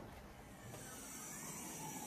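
Faint, steady hiss, with a faint whine that rises and falls about a second in.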